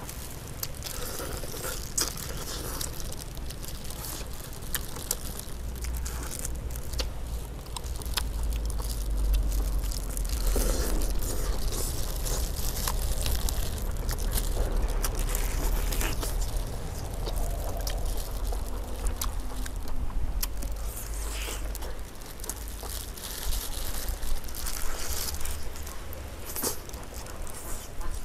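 Close-miked chewing and biting of honey-roasted chicken, with scattered crunches and clicks as the meat is torn and eaten, over a steady low rumble.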